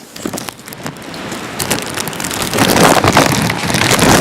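Hurricane-force wind buffeting the microphone, with driving rain, heard through a plastic bag covering the recorder, with crackles from the bag and rain hitting it. The wind swells louder about two and a half seconds in.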